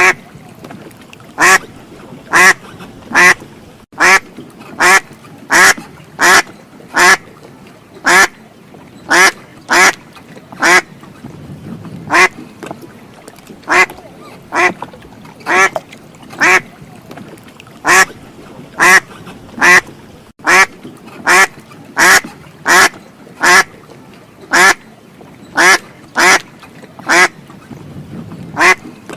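Duck quacking over and over: loud, short, harsh quacks about one to two a second, often in runs of two or three, over a faint steady background.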